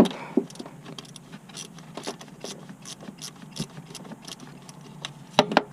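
Scattered small metallic clicks and taps from hands handling a nut, washer and bolt while refitting a starter motor, with two or three louder knocks near the end.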